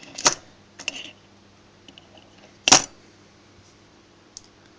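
A few sharp clicks and taps from handling the small plastic and metal parts of a dismantled RCD, the loudest one a little past the middle.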